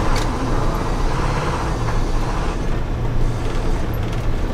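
School bus driving on a gravel road, heard from inside the cab: the engine runs steadily with a low drone, mixed with tyre and road noise.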